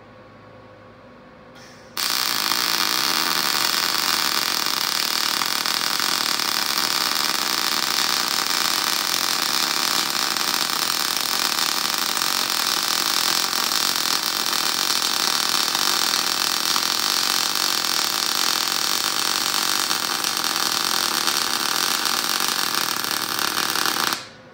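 Wire-feed (MIG-type) welder arc laying one continuous bead on square steel tubing: a steady, loud hissing arc that strikes suddenly about two seconds in, holds for about twenty-two seconds and cuts off abruptly near the end.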